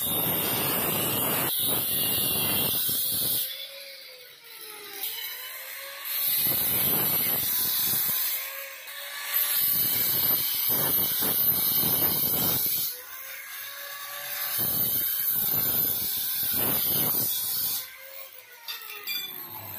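Angle grinder with a thin cut-off disc cutting stainless steel railing tube in about four grinding stretches of two to three seconds each. Between cuts the lighter free-running motor whine dips and rises.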